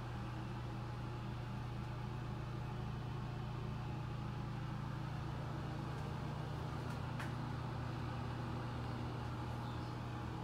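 Steady low machine hum with a constant pitch, like a running fan or appliance motor.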